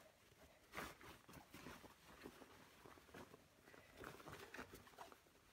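Faint, irregular rustling and crumpling of cotton fabric as a sewn patchwork cushion cover is handled and turned right side out.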